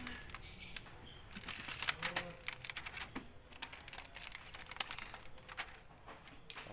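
A pad rubbed back and forth over an LCD panel's bare glass, cleaning it during a polarizer film replacement: irregular scuffing with many sharp clicks and taps.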